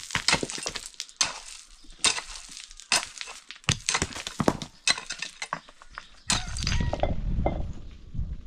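Rocks and stones clinking and knocking together, and a digging tool striking stony ground, in a quick irregular series of sharp strikes. About six seconds in, this gives way to a low rumbling noise with a few knocks.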